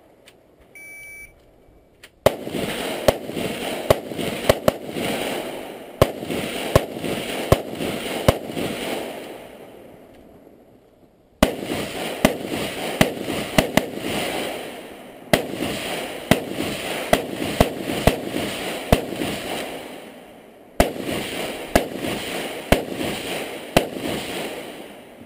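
Electronic shot-timer start beep about a second in, then strings of rapid semi-automatic rifle fire: many sharp shots in three bursts with short pauses between them.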